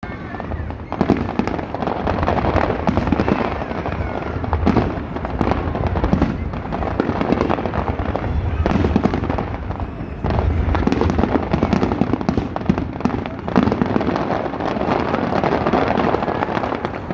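Aerial fireworks bursting in quick succession: a dense, continuous run of bangs and crackling over a low rumble.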